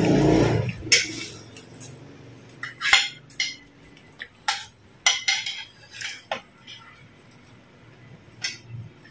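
Spoons clinking against ceramic bowls and plates while people eat: scattered sharp clinks, a few seconds apart. A short muffled rumble comes before them at the start.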